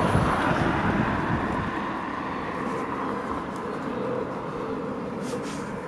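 Rushing background noise of passing traffic, loudest at the start and slowly fading, with a couple of faint clicks near the end.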